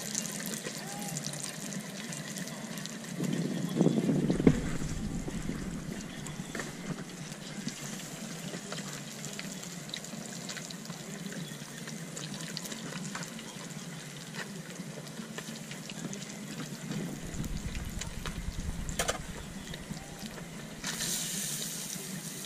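Fish deep-frying in a pot of hot oil on a propane burner: a steady sizzle with scattered little pops of grease. There is a bump about four seconds in, and the sizzle flares louder near the end as more fish goes in.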